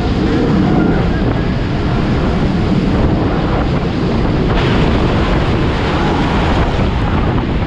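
Jet-turbine drag cars running, a loud steady rushing roar with wind buffeting the microphone, turning brighter about four and a half seconds in.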